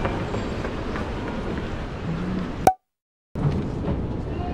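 Busy airport terminal ambience: an indistinct crowd murmur and general bustle in a large hall. About two-thirds of the way through, a sharp click cuts the sound to dead silence for about half a second, an audio cut, before the ambience returns.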